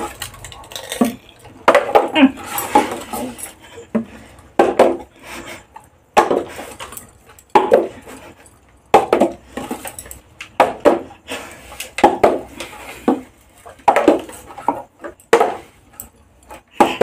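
Partly filled plastic bottle being flipped again and again and knocking down on a hard floor, roughly every one and a half seconds, each landing with a short clatter.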